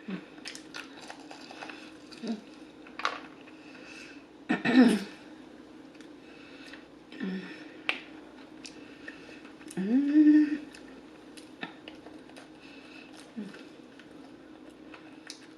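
Close-miked chewing of extra crispy KFC fried chicken, with many small wet mouth clicks and lip smacks. Two louder hummed murmurs come about 5 s and 10 s in, the second rising in pitch.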